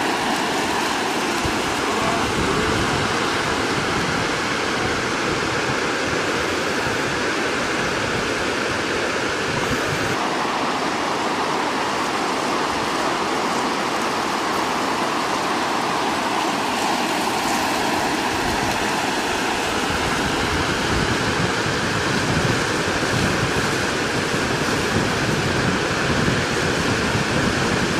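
Steady rushing of water over a river weir, its tone shifting slightly about ten and twenty seconds in.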